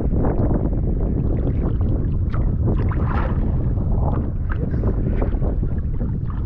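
River water sloshing and splashing close to the microphone as someone wades, over a steady low rumble.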